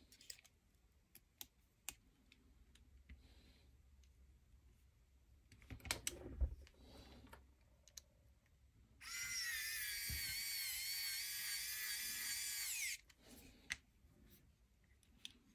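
Light clicks and taps of small parts being handled, then a small electric screwdriver runs for about four seconds with a steady whine, driving a screw, and stops abruptly.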